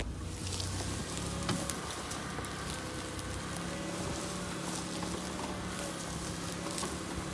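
Mitsubishi Pajero IV on the move: steady road and engine noise with scattered short knocks from the front suspension, the fault being shown.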